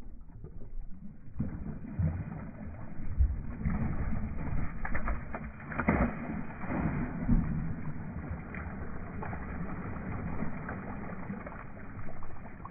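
Hooked peacock bass thrashing and splashing at the water's surface beside the boat, with the biggest splash about six seconds in as it leaps clear of the water.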